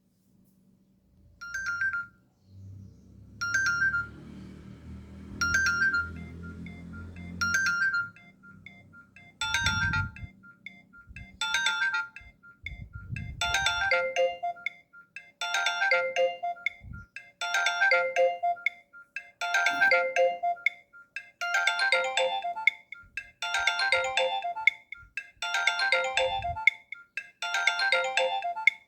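Nokia E62 mobile phone ringtone playing through the phone's speaker: a short electronic melodic phrase repeating about every two seconds, growing fuller as more notes join.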